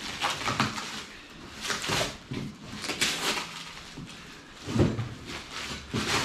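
Cardboard box and its packing being handled and pulled open: irregular rustling and scraping, with a single louder thump near the five-second mark.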